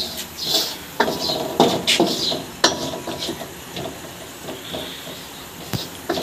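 Wooden spoon stirring and scraping a frying onion-and-spice masala around a stainless steel karahi, knocking against the metal pan now and then with sharp, irregular clacks.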